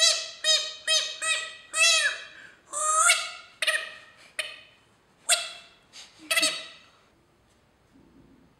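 A clown's squeeze noisemaker squeaking about ten times in quick, uneven succession, each squeak at much the same high pitch and dying away quickly, some bending down and back up in pitch.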